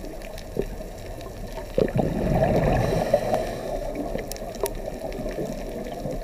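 Muffled underwater sound of scuba divers' exhaled air bubbling and gurgling, growing louder about two seconds in, with a few faint clicks.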